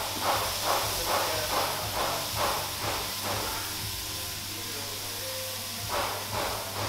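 Kadayıf machine running as its heated griddle turns under the batter dispenser: a steady hum and hiss, with a rhythmic knock about two or three times a second that pauses for a couple of seconds past the middle and then resumes.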